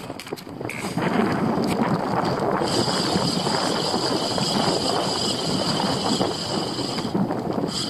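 Wind buffeting the microphone and choppy water rushing against a fishing kayak. A steady high-pitched whine joins about three seconds in and stops about a second before the end.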